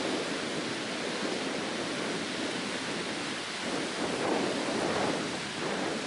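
Small waves breaking and washing up a sandy beach: a steady rush of surf mixed with wind, swelling louder about four seconds in and again near the end.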